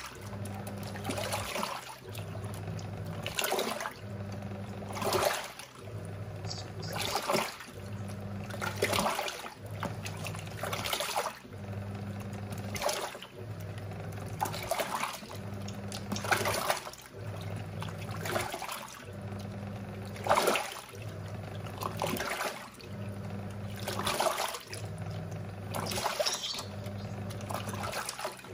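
Giantex EP23113GB top-loading washing machine in its wash cycle: the motor hums in spells of about a second and a half, stopping briefly between them about every two seconds, with water sloshing and splashing in the tub as the wash is agitated.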